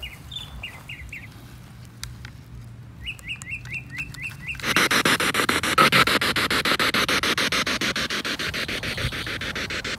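A small bird chirps two quick runs of short hooked notes. About halfway through, loud radio static switches on suddenly and runs on in fast, even pulses: a ghost box sweeping through radio stations.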